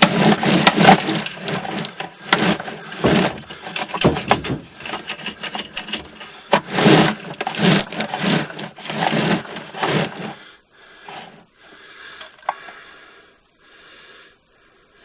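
Sewer inspection camera's push cable and head scraping, clattering and knocking in the pipe at a break in the sewer line that stops the camera. After about ten seconds it drops to faint, occasional scrapes.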